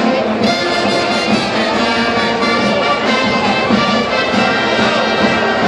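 A brass band playing a tune, with held notes.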